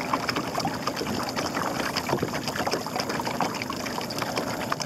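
Water splashing and trickling against the hull of a small fibreglass dory as it moves slowly through the water: many small, irregular splashes over a steady wash.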